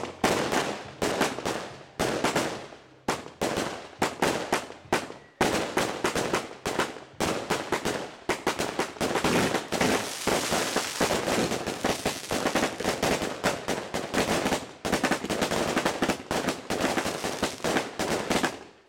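"Demon of the Night" shot-box firework cake firing a run of shots, two or three bangs a second, thickening into almost unbroken crackling bursts around the middle.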